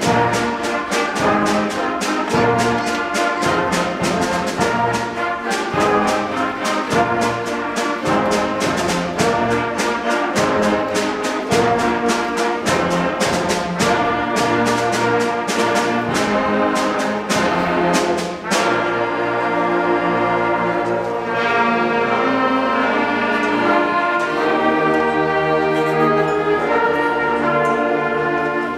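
Sixth-grade school concert band of brass and woodwinds playing a piece over a steady percussion beat. About two-thirds of the way through, the percussion stops and the winds play long held chords.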